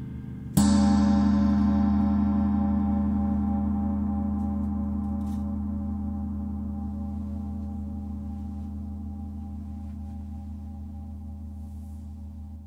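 A large gong is struck once with a mallet about half a second in and then rings on, slowly fading. The ring has a deep hum with a slow wavering and many shimmering overtones above it.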